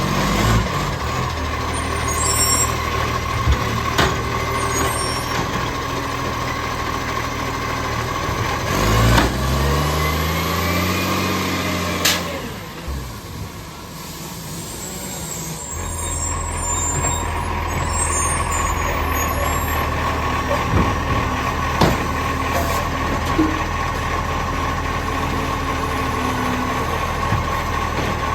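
Garbage truck's diesel engine running with an exhaust leak. It revs up and back down about nine seconds in, a short sharp burst comes at about twelve seconds, and the engine is quieter for a few seconds before settling back to a steady idle.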